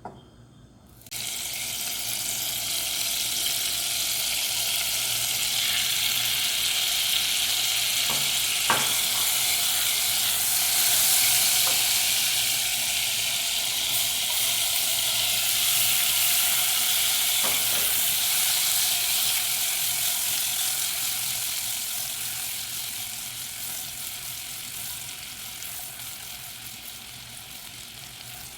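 Butter and chopped onion frying in a pan, sizzling, with a few faint clicks of stirring. The sizzle starts suddenly about a second in and slowly dies down over the last several seconds as the onion softens.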